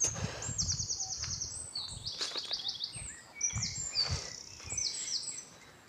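A songbird singing several quick, high, trilled phrases one after another, over low thuds of footsteps on a dirt path.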